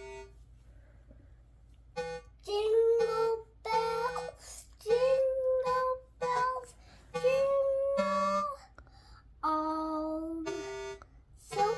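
A child singing a tune unaccompanied in short phrases of held notes, starting about two seconds in, with brief breaks between phrases.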